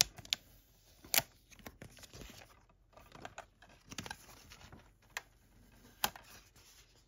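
A paper J-slip sleeve being pulled off a metal steelbook case: soft paper rustling with a few sharp clicks, the clearest about a second in and two more near the end.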